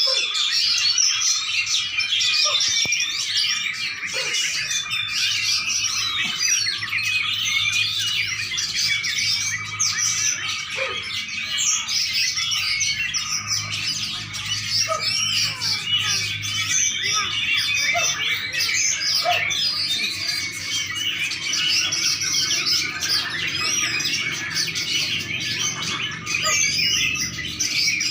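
Small songbirds chirping and singing nonstop, many short notes and trills overlapping densely, with a thin steady whistle-like tone running beneath them and a faint low hum.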